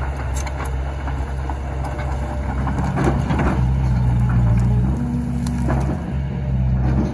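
Excavator's diesel engine running under hydraulic load while its bucket pushes and piles cut pine branches, the branches crackling and snapping, loudest about three seconds in. The engine note steps up about four seconds in as the boom works.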